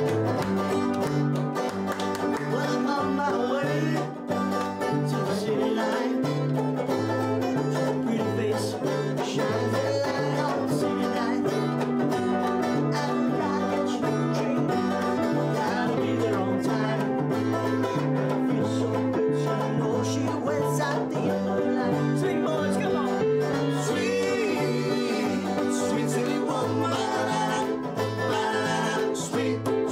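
A grand piano and a strummed banjo play a lively tune together, the piano's bass stepping back and forth between two low notes in a steady oom-pah rhythm. Men's voices join in singing in the later part.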